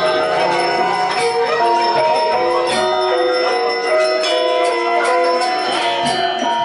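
Balinese gamelan music: bronze metallophones playing a melody in stepped notes, with frequent sharp metallic strokes over it.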